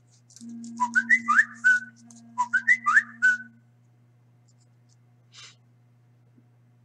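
Someone whistling a short tune: the same phrase of rising and falling notes twice, each lasting about a second, with a breathy hiss on the notes.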